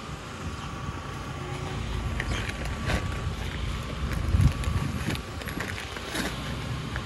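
Portland cement emptied from a torn paper sack onto a heap of sand, the paper crackling and the powder sliding out, with a heavy low thump about four and a half seconds in. A steady engine hum runs underneath.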